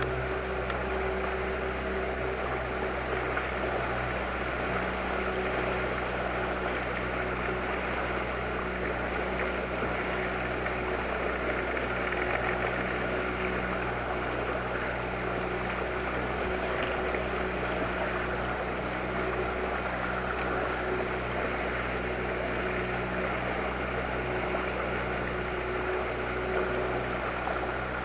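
Outboard motor of an inflatable boat running steadily at slow trolling speed, with water rushing past the hull.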